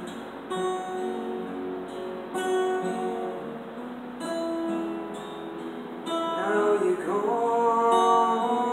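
Two acoustic guitars strumming and picking chords as a slow song goes on. About six seconds in, singing slides up into a long held note.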